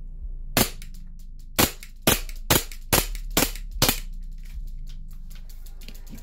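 Elite Force Glock 18C gas-blowback airsoft pistol, running on propane, firing seven sharp single shots. The first comes alone; the other six follow about half a second apart.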